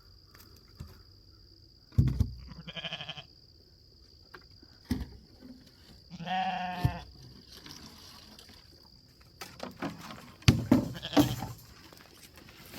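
Sheep bleating twice: a short bleat about three seconds in and a longer, wavering one about six seconds in. Several sharp knocks and thumps come in between, the loudest near the end.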